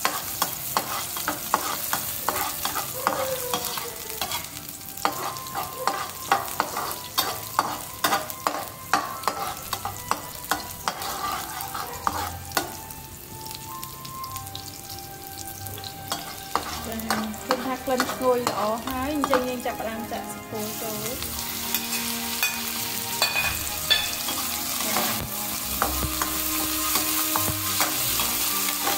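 Oil sizzling in a wok as chopped garlic and spring onion fry, with a spatula scraping and tapping against the pan in many quick clicks, densest in the first half.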